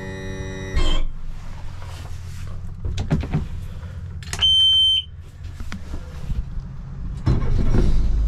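Low, steady engine rumble with a single high electronic beep lasting about half a second midway, then the rumble grows louder near the end.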